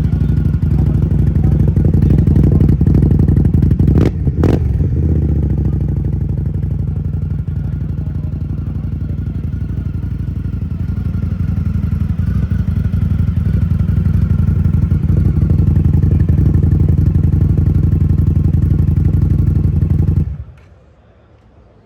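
Indian Scout motorcycle's V-twin engine idling steadily, with two sharp clicks about four seconds in. The engine cuts off suddenly near the end as it is shut down.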